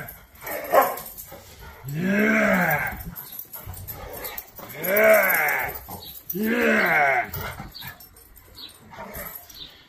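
A dog giving long, bleat-like vocalisations in play: three drawn-out calls of about a second each, every one rising and then falling in pitch, with a short yelp before them.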